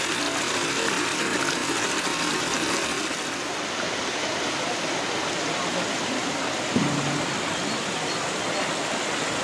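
Steady rush of running, splashing water, with a brief faint pitched sound about seven seconds in.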